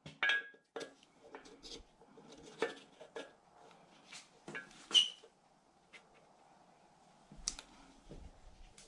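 Light metallic clicks and taps as a piston ring is pushed square in an aluminium engine block's cylinder bore with a ring-squaring tool to check its end gap. The sharpest click, with a brief ring, comes about five seconds in.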